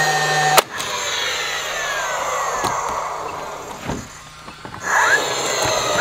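Cordless nail gun nailing wooden window trim. Its motor spins up with a rising whine and holds a steady tone, then fires a nail with a sharp crack about half a second in. The whine falls away over the next few seconds, and near the end the motor spins up again for the next nail.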